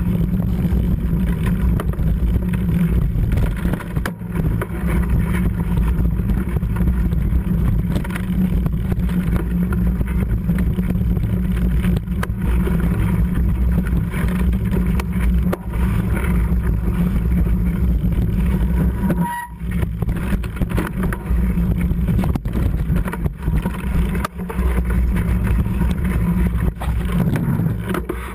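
Mountain bike ridden fast down a rough, stony track, picked up by a camera on the bike: a steady low rumble with frequent small knocks and rattles.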